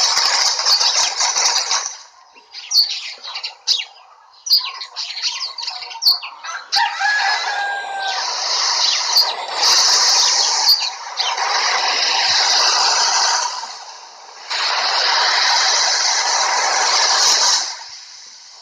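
Ambience sound-effect previews played back one after another: stretches of steady rushing hiss, broken a couple of seconds in by a farmyard recording of chickens clucking, wings flapping and a rooster crowing.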